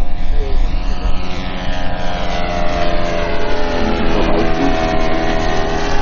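Engine and propeller of a large RC scale biplane model flying a low pass, a steady drone whose pitch sinks slightly as the model passes close by.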